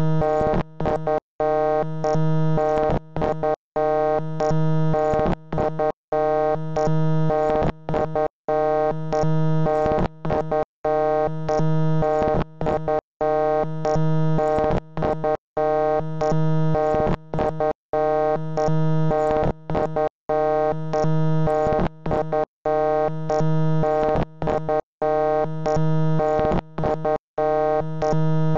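Loud, harsh electronic synthesizer-like tone made of many steady pitches at once. It is looped and chopped by short gaps about once or twice a second.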